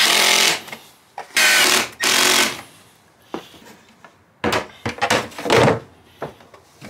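Cordless power drill driving screws through a wooden shower-curb support into the plywood subfloor, in three short runs close together. A few seconds later come a handful of quieter knocks and scrapes as the shower pan is set down over the support.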